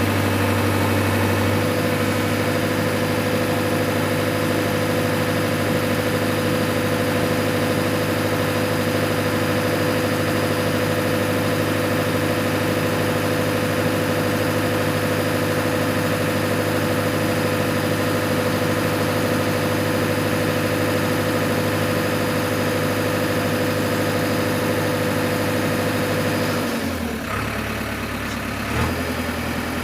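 JCB backhoe loader's diesel engine running at a steady pitch. About three seconds from the end its note shifts and dips, and there is a brief knock near the end.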